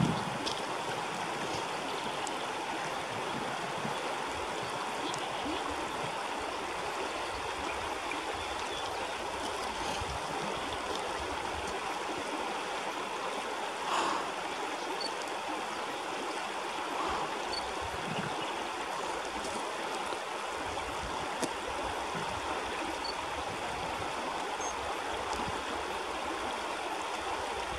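Shallow river flowing over rocks: a steady rush of running water, with one brief slightly louder moment about halfway through.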